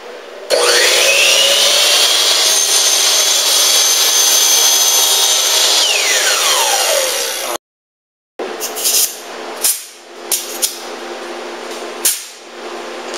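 Delta Sidekick 10-inch motorized miter saw starting up with a fast-rising whine, running steadily on a wooden board, then winding down with a falling whine. After a short break, a handheld air tool on a coiled hose gives several short sharp bursts over a steady hum.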